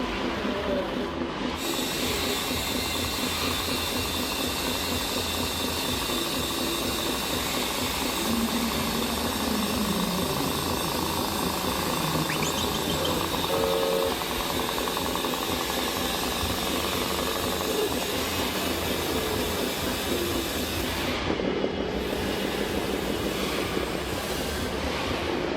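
Steady mechanical hiss and rumble with a few short whines that slide in pitch, one falling about nine seconds in.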